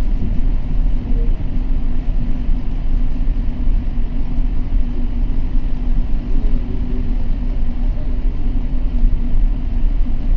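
Steady low rumble with a constant low hum underneath.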